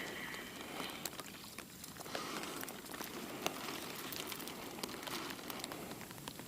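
Rain falling, with scattered sharp drop hits close by over a steady hiss.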